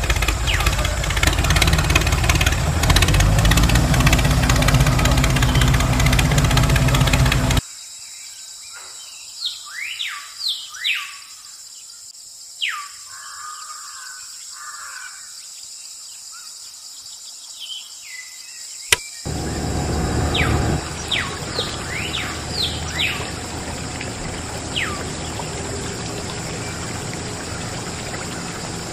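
Small battery-powered DC motor of a homemade toy tractor running with a steady buzz for about seven seconds, then cutting off abruptly. After that, birds chirp in short falling calls over a quieter steady background.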